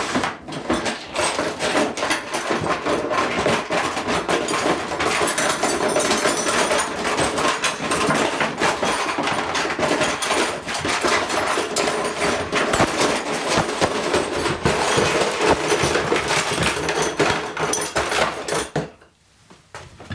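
Hard tools and small objects clattering and knocking together as someone rummages through them, a dense, continuous rattle that stops shortly before the end.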